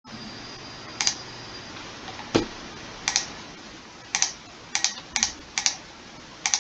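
Computer mouse buttons clicking: about ten sharp clicks, several in quick pairs, with one heavier knock a little over two seconds in.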